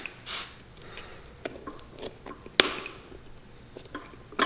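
A pointed awl picking apart the chain-stitched welt of a Dr. Martens boot: a few small, separate clicks and snaps as stitch loops are popped and pulled free. The sharpest comes about two and a half seconds in.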